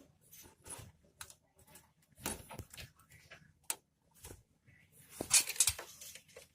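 Irregular short clicks and rustling, with a louder stretch of rustling a little over five seconds in.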